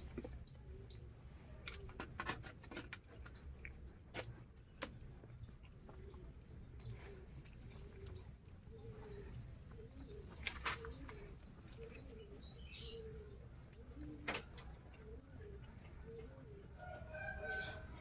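Short high bird chirps scattered through the middle, over irregular clicks and knocks. A short pitched animal call comes near the end.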